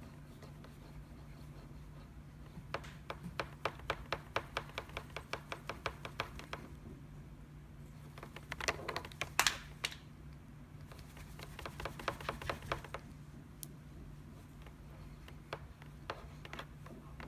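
A small handheld plastic box holding an accelerometer board, rattling and clicking as it is shaken rapidly back and forth: quick runs of clicks about four a second, with a louder scraping rattle about nine seconds in. A steady low hum lies under it.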